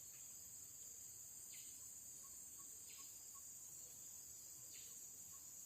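Faint, steady high-pitched drone of insects, with short chirps repeating about every second and a half.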